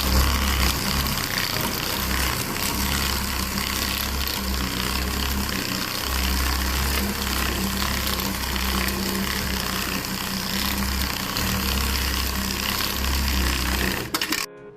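Loud, steady machine noise with a low rumble that comes and goes every second or two, cutting off abruptly near the end.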